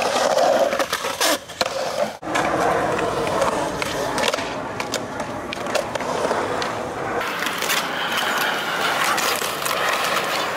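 Skateboard wheels rolling over concrete in a skate bowl, a steady gritty rumble, broken by a few sharp clacks of the board.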